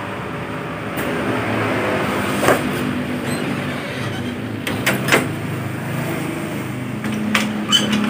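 Sharp clicks and knocks of photocopier parts and panels being handled and fitted, a few scattered and a quick cluster about halfway, over a steady low hum.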